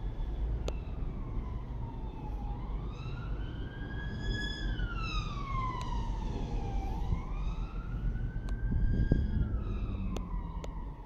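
Emergency vehicle siren wailing, its pitch slowly rising and falling about once every four to five seconds, over a steady low background rumble.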